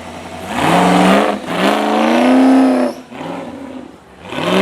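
Off-road 4x4's engine revving hard in three bursts, the pitch climbing with each throttle blip and dropping back between them.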